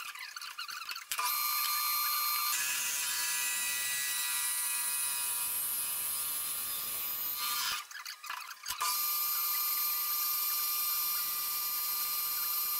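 Metal lathe running while a twist drill and then a boring bar cut into the centre of a spinning metal disc: a steady whine with several high tones over a hiss. It drops out briefly twice, about a second in and around eight seconds.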